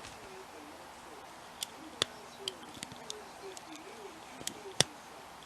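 Lock-picking tools working the pins of a hand-held pin-tumbler challenge lock: a string of light, sharp metallic clicks, scattered from about a second and a half in, the loudest near the end. A faint, low, wavering tone runs underneath.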